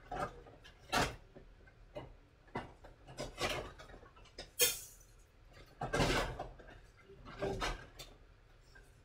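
Kitchen handling noises: irregular sharp knocks and clicks, with a few longer rustling or scraping bursts about three and a half, six and seven and a half seconds in.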